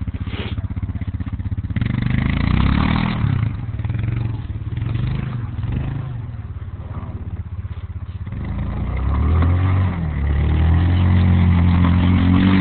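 Yamaha Rhino 450 side-by-side's single-cylinder engine running with an even pulsing beat, revving up about two seconds in and again, harder and held high, from about nine seconds in. It is working against deep, hard-packed snow, with the wheels buried.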